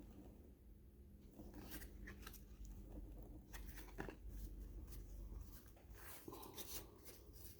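Faint rustling and scattered light ticks of paper baseball cards being handled and flipped through.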